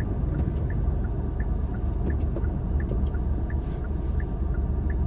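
Steady low road and engine rumble inside a moving car's cabin, with the turn signal ticking evenly, about three clicks every two seconds.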